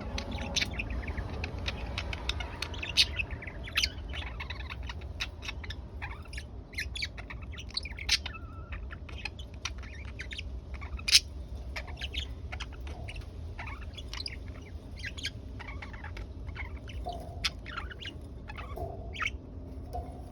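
Pet budgerigars chirping and chattering in many short, quick calls, a few of them sharply louder, over a steady low hum.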